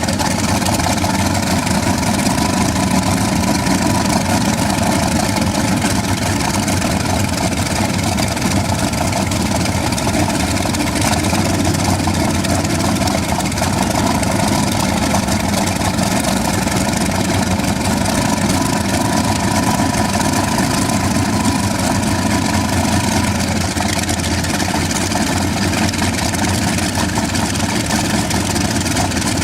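An old helicopter's engine running steadily during a ground start, a loud, even drone.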